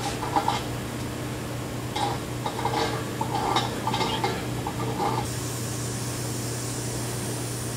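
A run of short, light metallic clinks and scrapes over a steady low hum in the first five seconds, as the molten brass-bronze is made ready to pour into a sand mold.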